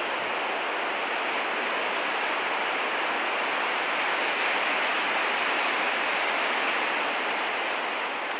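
Strong wind rushing through the trees, a steady hiss that swells about halfway through and eases near the end.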